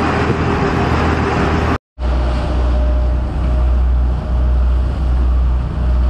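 Fishing boat's engine running at speed with wind and rushing water, a steady low drone that swells and dips slightly about once a second. The sound drops out for an instant about two seconds in.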